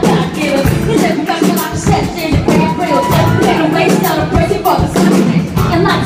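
Live band music: a slow R&B groove with a steady drum beat and electric guitar, and singing in places.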